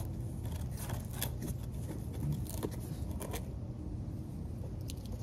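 Scattered light clicks, crinkles and scrapes of hands handling small parts, over a low steady hum.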